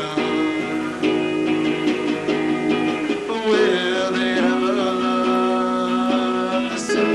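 Live band music led by guitar: held, overlapping notes over the backing, with a wavering, bending lead line about three and a half seconds in.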